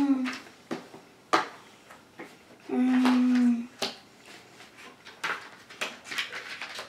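A DVD case and its paper insert being handled, giving sharp clicks and light taps, with a cluster of small ticks in the second half. About three seconds in there is a single steady hummed note lasting about a second, the loudest sound.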